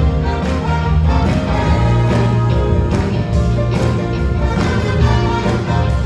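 A blues band playing live, with electric guitar, a horn section, bass guitar and keyboard over a steady drum beat.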